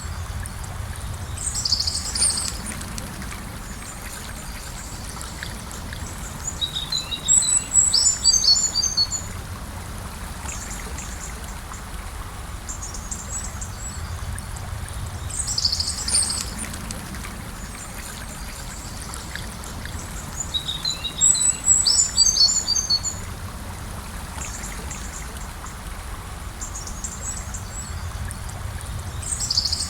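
Gentle river flowing steadily, with songbirds calling over it: a short chirped call, then a longer run of quick twittering notes, the same pair recurring about every fourteen seconds.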